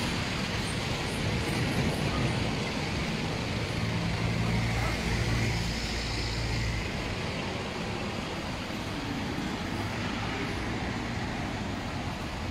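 A motor vehicle engine running close by, under a steady wash of road and outdoor noise. The engine is loudest in the first half and eases off after about seven seconds.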